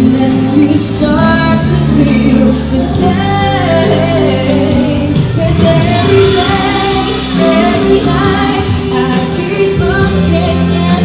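A woman singing a pop song live over backing music.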